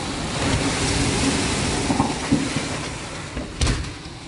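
Storm wind and heavy rain rushing in a steady wash of noise that eases off toward the end, with a single thump about three and a half seconds in.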